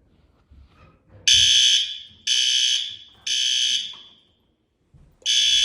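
Building fire alarm sounders going off in the temporal-three evacuation pattern: three loud, high-pitched half-second blasts about a second apart, a pause, then the next set begins near the end. The new system is being set off while the fire department inspects it.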